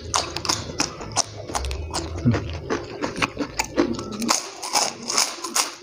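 Close-up crunching as a person bites and chews a crisp white kerupuk cracker: many sharp, irregular crackles in quick succession.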